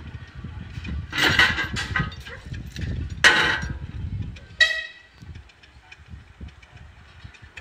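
Narrow-gauge railway locomotive sounding three short toots on its whistle, the last the shortest and clearest, over a low rumble that dies away about five seconds in.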